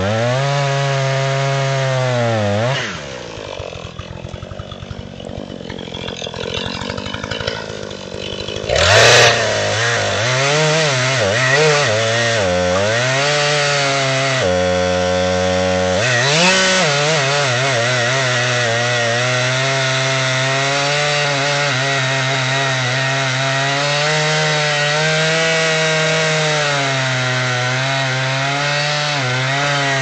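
Gas chainsaw cutting into a standing tree trunk, its engine pitch wavering as the chain bogs and recovers in the wood. About three seconds in it drops to a quiet idle for several seconds, then revs up again near nine seconds and keeps cutting.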